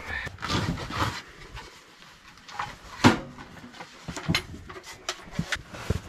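A Winnerwell tent stove being unpacked from its duffel bag: rustling of the bag, with scattered knocks and clinks of its sheet-metal pieces, the sharpest clank about three seconds in.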